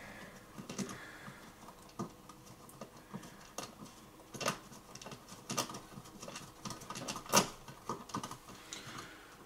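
A screwdriver and a thin metal blade scraping and clicking against an old flush-mounted light switch and its metal frame as the switch is pried out of its wall box. The small, irregular clicks are strongest about seven and a half seconds in.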